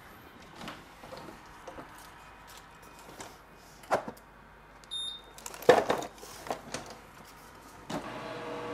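Green nitrile gloves being handled and pulled on: scattered light rustles and snaps, loudest about six seconds in. A short high beep sounds about five seconds in, and near the end a steady hum with a few held tones starts abruptly.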